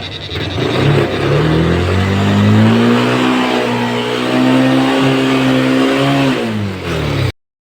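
Vehicle engine revving under acceleration. The pitch climbs over the first two seconds or so, holds high, then drops near the end, and the sound cuts off suddenly.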